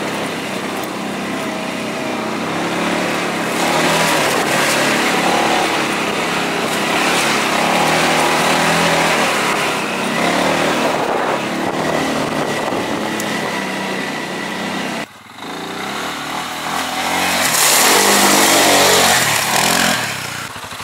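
Off-road vehicle engine running under way, its pitch rising and falling with the throttle. There is a sudden brief drop about fifteen seconds in, and the sound is loudest for a couple of seconds near the end.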